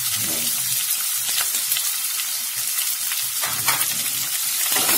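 Freshly added sliced onions frying in hot oil with mustard and cumin seeds in a non-stick pan: a steady sizzling hiss with a few sharp crackles.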